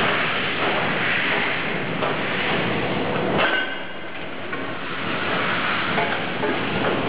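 Automatic lead casting machine for car batteries running: a steady mechanical clatter with scattered clicks and knocks. A sharper knock comes about three and a half seconds in, after which the noise drops somewhat.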